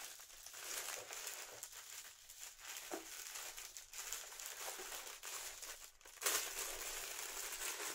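Clear plastic packaging crinkling and rustling as it is handled, getting louder about six seconds in.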